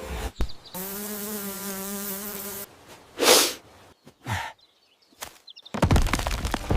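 Cartoon sound effect of an insect buzzing steadily for about two seconds. Then come two short breathy whooshes a second apart, and near the end a rapid clatter of clicks and thuds.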